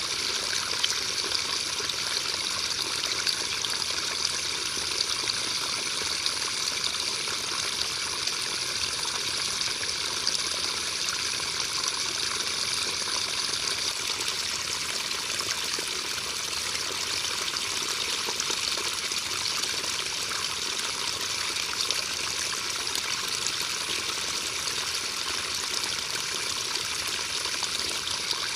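Steady rain falling: an even, dense hiss of many small drops that does not change.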